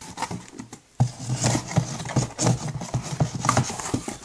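Irregular rubbing and knocking handling noise from a hand-held phone being moved, fingers brushing over its microphone, starting suddenly about a second in.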